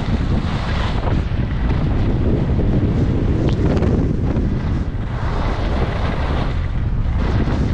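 Heavy wind buffeting the microphone of a skier moving fast downhill, with the hiss and scrape of skis carving on groomed snow swelling with each turn.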